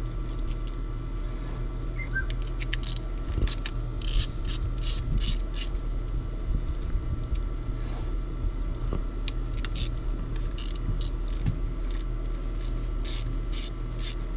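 Irregular mechanical clicking, ratchet-like, over a steady low hum.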